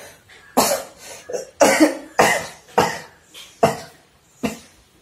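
A teenage boy coughing repeatedly, about seven coughs in a row, acted as a COVID-19 symptom.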